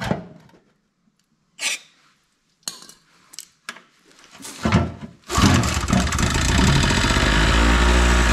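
A few short knocks and handling sounds, then about five seconds in the Chicago Electric generator's small two-stroke engine catches and runs steadily.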